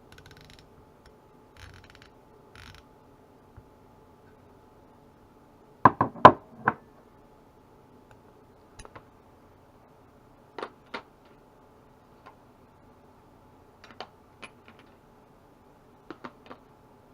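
Metal hand tools being handled: a ratchet and its sockets and adapters clicking and knocking against each other. A few soft rustles come first, then a quick run of four sharp metallic clicks about six seconds in, the loudest, and scattered pairs of lighter clicks after it.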